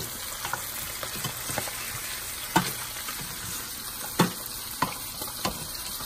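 Arborio rice toasting and sizzling in butter and olive oil with onion and garlic in a stainless steel pot, a steady frying hiss. It is being stirred with a cooking spoon, which clicks and scrapes against the pot a few times.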